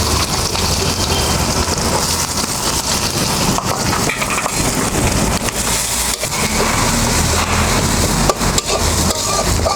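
Chopped onion sizzling and crackling in hot oil with dried red chillies and crushed garlic, a steady sizzle with scattered sharp pops and clicks.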